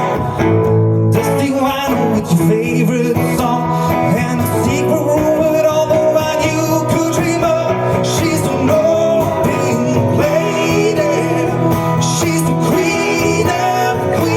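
Live performance of a country-rock song, with guitars playing.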